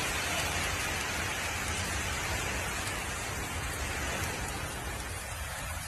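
Heavy storm rain pouring down, a steady hiss with a low rumble underneath.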